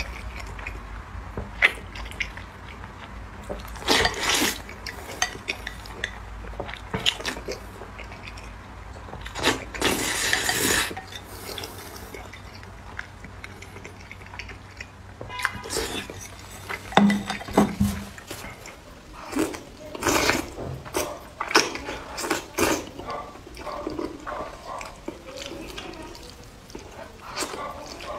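Close-up eating sounds of saucy instant noodles: repeated slurping, wet chewing and mouth noises, with chopsticks clicking against the plate.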